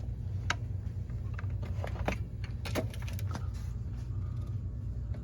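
Scattered rustles and clicks, a handful over a few seconds, of a person moving and handling gear in a crawl space, over a steady low hum.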